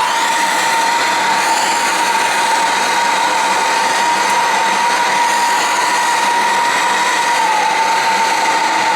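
Plumbing torch burning steadily: a loud hiss with a steady whistling tone, heating a copper fitting to sweat a solder joint.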